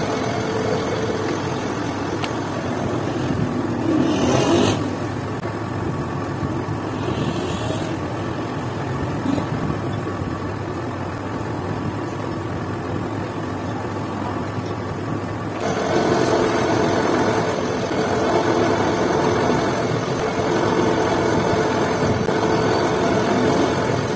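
Metal lathe running steadily while a single-point tool cuts a thread into a metal bar. There is a short louder burst about four seconds in, and the machine gets louder again with a steady hum from about two-thirds of the way through.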